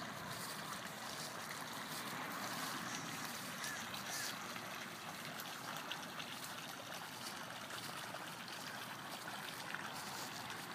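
Steady splashing and trickling of water in a pond, an even wash of noise without pauses.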